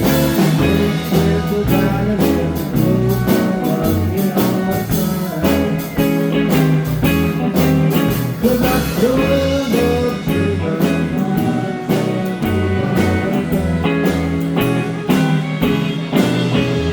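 Live blues-rock band playing an instrumental passage: a guitar lead with bent notes over bass and drum kit.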